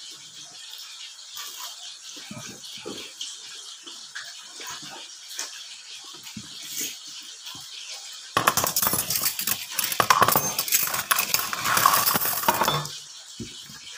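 Crisp fried food crunching close to the microphone: faint small clicks at first, then about eight seconds in a loud, dense crackling crunch that lasts about four seconds before dropping back.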